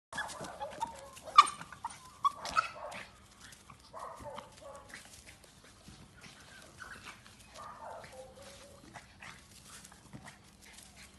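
Small dog barking and yelping in short bursts, densest in the first three seconds and tailing off later, with one sharp, loud bark or knock about a second and a half in.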